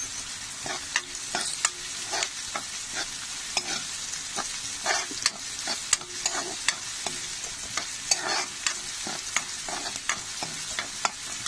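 Green peas, onion and ginger-garlic sizzling in hot oil in a kadhai while a spoon stirs them. The spoon scrapes and knocks against the pan in irregular short clacks over a steady hiss.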